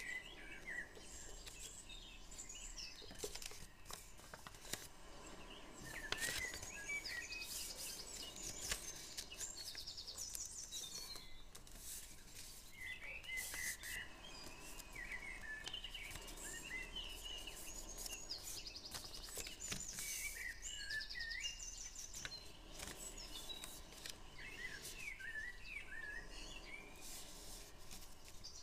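Small birds chirping and trilling repeatedly in the background, mixed with the short crackles and rustles of paper being folded and creased by hand.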